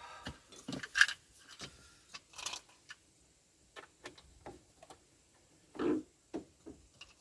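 Irregular light clicks and taps of small parts being handled and fitted by hand, one sharper click about a second in and a duller knock near the end.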